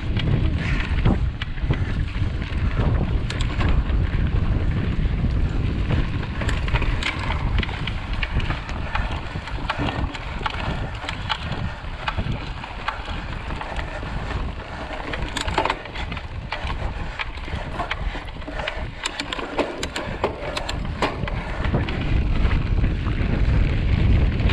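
Wind buffeting the microphone of a camera on a mountain bike ridden at speed, over a steady rumble of tyres on a dirt trail. Irregular clicks and rattles from the bike over bumps, thickest in the second half.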